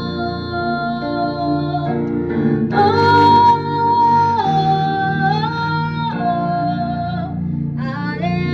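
Worship song: a woman singing long held notes that step up and down, over instrumental accompaniment.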